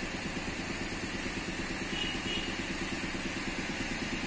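Motorcycle engine idling steadily with an even, fast pulsing.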